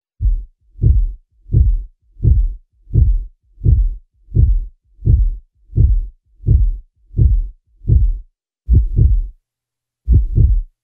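Heartbeat sound effect: deep, evenly spaced thuds at about one and a half beats a second, ending in two pairs of quick double beats with a short pause between them.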